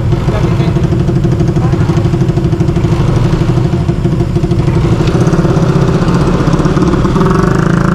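Motorcycle engine running steadily at low revs, heard close, with an even pulsing note.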